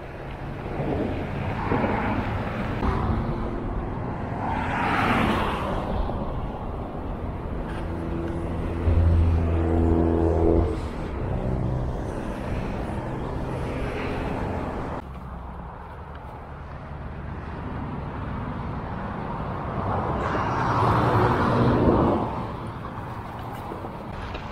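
Mountain bike ride noise: wind on the microphone and tyres on a dirt trail, swelling and fading. A steady pitched hum like a motor vehicle's engine comes in about nine seconds in and lasts about two seconds.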